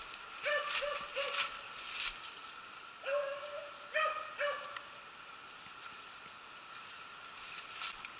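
Beagles baying while running a rabbit: three short barks about half a second in, then a longer bawl and two more short barks around three to four and a half seconds in.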